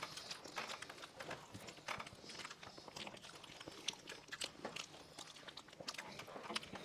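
People eating soft cake with their mouths alone: a quiet, irregular run of wet lip smacks, bites and slurps.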